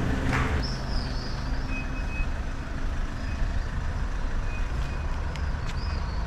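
Red camper pickup's engine running as it drives slowly off along a paved street, with a steady low rumble of traffic and street noise. A few short, high beeps sound in the middle.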